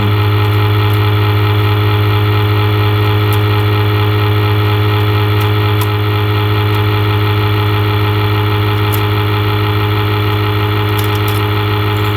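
Loud, steady electrical buzzing hum, one low droning note with a buzzy edge, unchanging throughout, with a few faint clicks over it.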